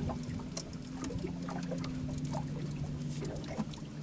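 Small irregular water pats and light ticks against a steady low hum, with faint squeaky bits, as a fish is played from the boat.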